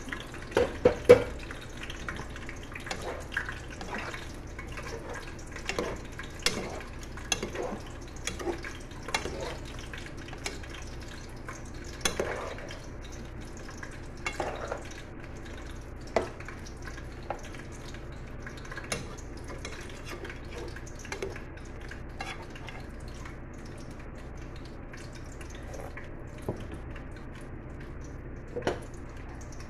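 Shrimp cooking in a stainless-steel pot, a steady hiss with scattered clicks and clinks of the metal pot and its lid.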